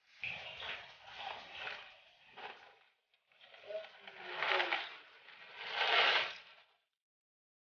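Noodles being tipped from a plastic bowl into a pot of broth, with splashing and scraping in two spells, the second louder.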